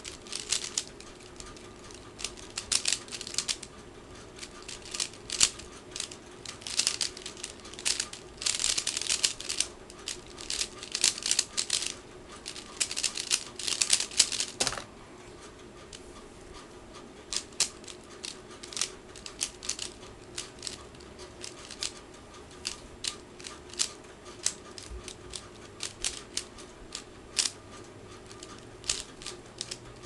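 Dayan Zhanchi 3x3 speedcube turned fast through a timed solve: a dense, rapid run of plastic clicks and clacks that stops sharply about fifteen seconds in. After that come slower, separate turning clicks as the cube is turned between solves.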